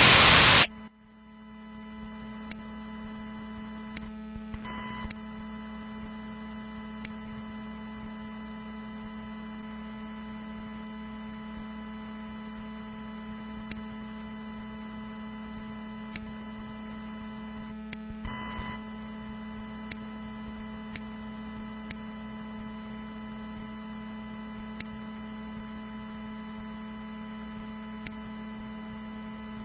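A harsh, noisy electronic sound rendered from a drawing by image-to-sound software cuts off suddenly within the first second. It leaves a steady electrical hum from the sound system, with faint scattered clicks.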